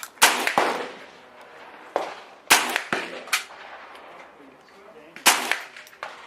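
Gunshots on a shooting range: three loud shots about two and a half seconds apart, each ringing out afterwards, with fainter shots in between.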